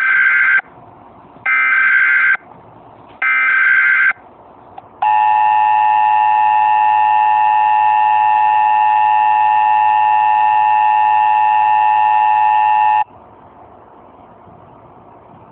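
Emergency Alert System tones: three short bursts of digital data noise (the SAME header), each about a second long and about a second apart. Then the two-tone attention signal, a steady harsh dual tone held for about eight seconds that cuts off suddenly.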